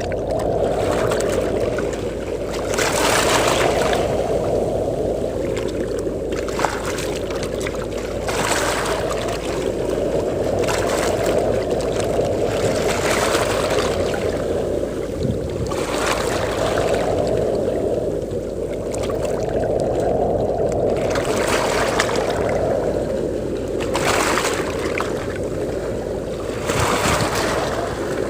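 Sea waves washing onto a beach, a hissing surge every two to three seconds, over a steady low rumble of wind.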